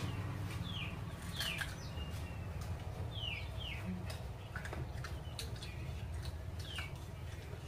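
Small birds chirping, each call a short falling note, heard several times. Close-up chewing and mouth clicks come from a man eating grilled pork, over a low steady hum.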